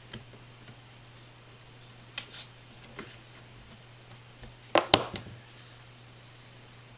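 Small clicks and taps of tools and metal parts being handled while assembling an RC truck's steering knuckles, a few single clicks and then a louder cluster of clicks about five seconds in, over a low steady hum.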